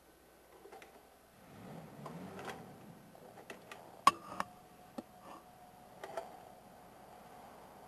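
Faint scattered clicks and knocks over quiet room tone, with a soft low rustle early on and the sharpest click about four seconds in.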